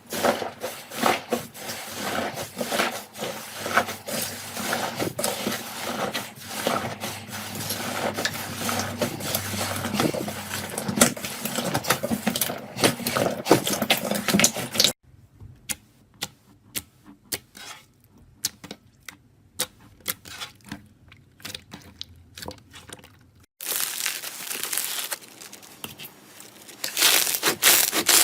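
Slime being worked by hand, giving a dense run of sticky crackles and small pops. About halfway through it drops to a much quieter stretch of scattered single pops, then turns dense and crackly again near the end.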